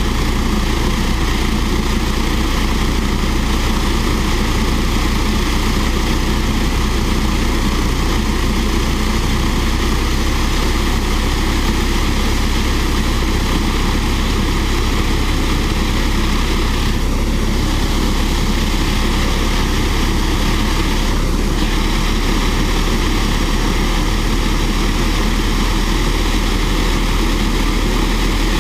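Fairchild J44 small turbojet running steadily on a ground stand: a loud, even rush of jet noise with a constant whine.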